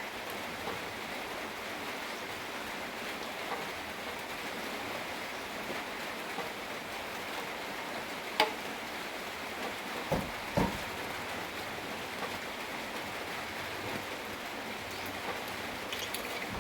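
Steady rain falling, an even hiss, with a sharp click about eight seconds in and two heavier knocks a couple of seconds later.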